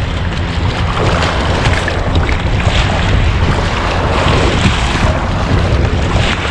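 Wind rumbling on the microphone over choppy sea and small breaking waves, with the splash of kayak paddle blades dipping into the water.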